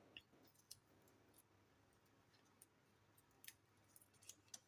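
Near silence with a few faint, scattered clicks and crackles of electrical tape being unwrapped from a ceiling fan capacitor's wire joints, clustering near the end.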